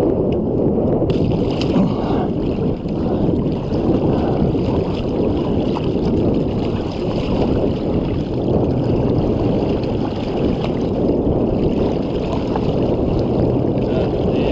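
Steady wind rumble on the microphone over water sloshing and splashing at the side of a boat, where a large redfish is being held in the water by hand.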